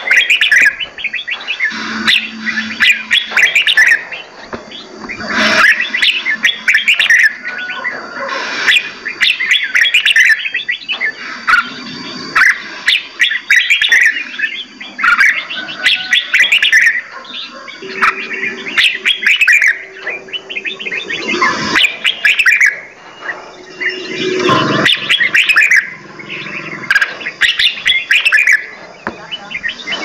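Several songbirds singing and chirping over one another in quick, repeated phrases, with many sharp clicks in between.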